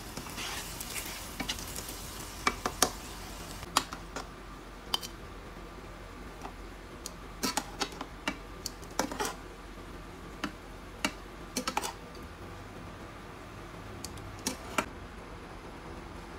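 Kitchenware clinking and clacking: scattered sharp knocks of dishes and utensils, some in quick pairs and triplets, with a short stretch of hiss near the start.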